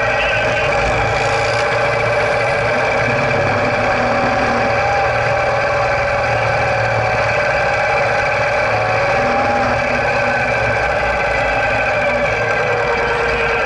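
Sidecar motorcycle engine running steadily at a low, even speed, close to the microphone.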